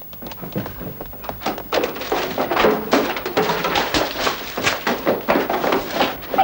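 Dense, uneven thuds and clatter of books and shelving being knocked down and thrown about as a bookshop is ransacked, building up about half a second in and going on without a break.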